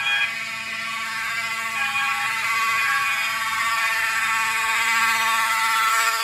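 Several fire alarm horns and horn-strobes sounding at once, a loud dense mix of steady tones: a fire alarm panel in alarm after its manual pull station has been pulled.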